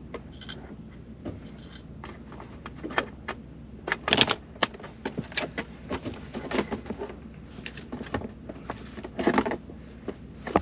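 Plastic rear centre-console trim on a 2022 Ford Explorer being handled and snapped into place: a run of irregular clicks and knocks, loudest about four seconds in and again near nine seconds.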